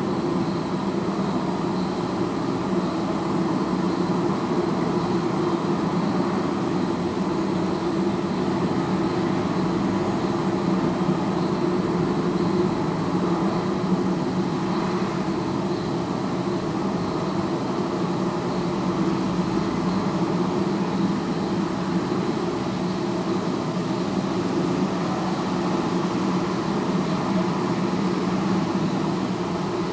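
Steady noise of distant city traffic, picked up through a sound mirror's listening horns, with a faint steady high whine above it.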